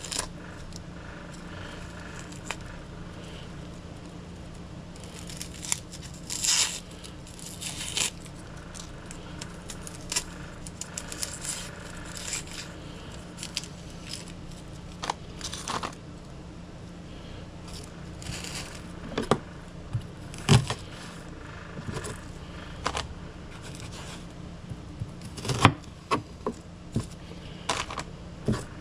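Dry papery skin of a yellow onion being peeled off by hand: irregular crackles and short tearing rustles, with a couple of sharper snaps in the second half, over a steady low hum.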